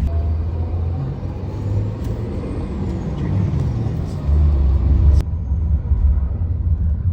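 Steady low rumble of a vehicle, with hiss above it that drops away abruptly about five seconds in.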